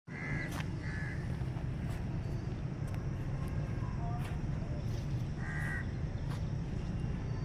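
Crows cawing: two short caws in the first second and another about five and a half seconds in, over a steady low rumble.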